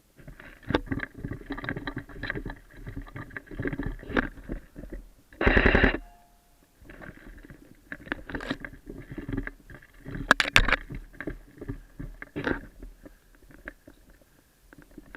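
Close-up rustling, clicks and knocks of movement and gear handling, with one short loud burst about five and a half seconds in and a few sharp clicks around ten seconds in.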